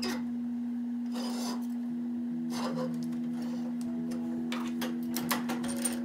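Steady electric motor hum with several fixed tones, overlaid by metal clinks, knocks and scraping as a small steel pin is set and clamped in a cast-iron drill press vise. The clinks cluster near the end.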